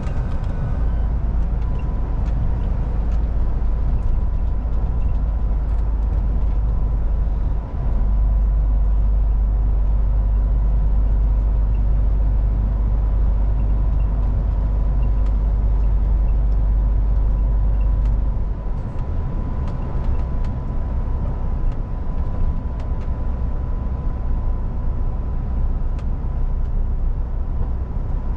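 MAN TGX semi truck on the move: a steady low engine and road rumble, heaviest at the bottom end, with a faint steady high tone over it. The low rumble briefly dips and then grows louder about a quarter of the way in, and eases back again about two-thirds of the way in.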